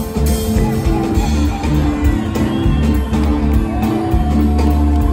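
A live band playing: drum kit, keyboard and a guitar, over held low bass notes.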